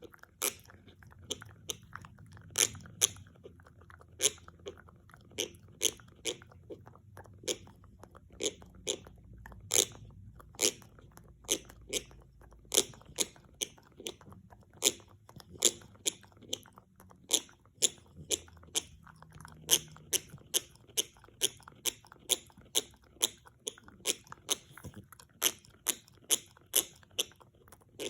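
French bulldog gnawing an antler: teeth grinding and crunching on the hard antler, with sharp, irregular clicks about two a second.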